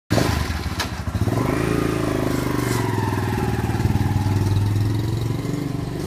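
Small chopper-style motorcycle's engine running as the bike pulls away, its pitch rising about a second in and then holding steady.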